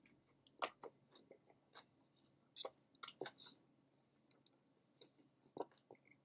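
Faint close-up chewing of a soft, saucy cheeseburger: irregular wet mouth clicks and smacks, coming in a few short clusters.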